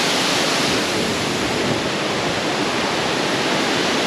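A waterfall rushing steadily: a dense, even roar of falling water.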